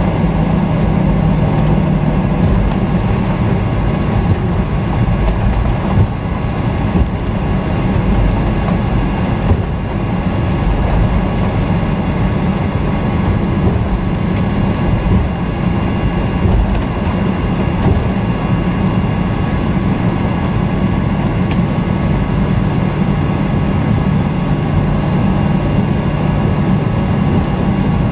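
Steady cabin noise of a Boeing 737 rolling on the ground just after landing: the even rumble of the engines and airframe, with a low hum underneath.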